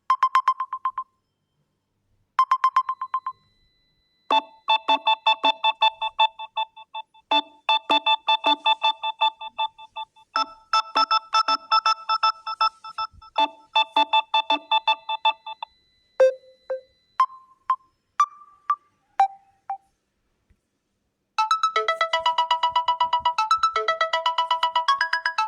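Samsung Galaxy A04 phone playing several ringtones in turn, each cut off for the next. Two short runs of quick beeps on one pitch come first, then a tune of rapid repeated chiming notes lasting about eleven seconds, then four lone short notes. After a brief gap, a fast repeating note pattern starts near the end.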